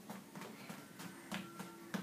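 Bare feet of small children padding and thumping on a wooden parquet floor as they dance: irregular soft footfalls, about three a second, the last one a little louder.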